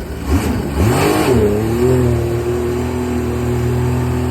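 Rebuilt Sea-Doo Rotax 1503 four-stroke three-cylinder engine being revved: a quick blip, then a bigger rev that rises and falls back about a second in, then held at a steady higher speed.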